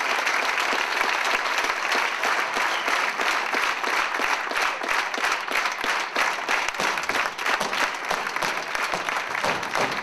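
Theatre audience applauding a stage performance, a dense steady clapping that becomes more even and rhythmic in the second half.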